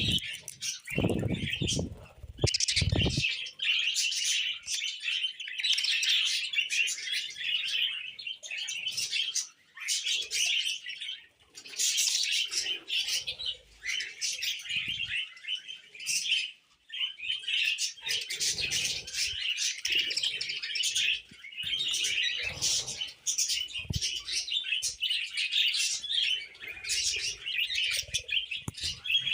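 Budgerigars chirping and chattering continuously in quick, overlapping twitters, with a few low bumps about one to three seconds in.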